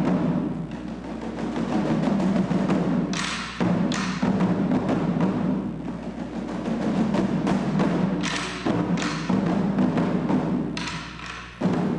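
Ensemble of small Chinese drums struck with sticks, playing fast, dense rolls that swell and ease in waves, with several stretches of sharper, brighter strokes.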